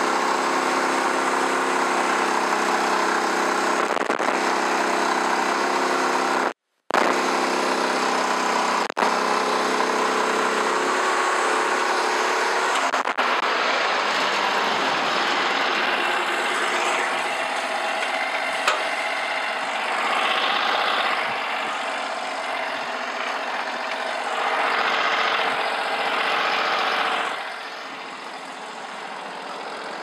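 Gasoline engine of a Norwood HD36 portable bandsaw mill running steadily under load as the band blade saws through an elm log. About ten seconds in, the steady engine note gives way to a rougher running sound, which gets quieter near the end.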